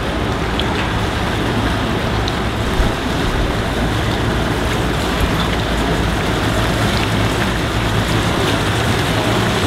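Single outboard motor on a small NauticStar center-console boat running at low speed as it passes, a steady low hum over a wash of water noise.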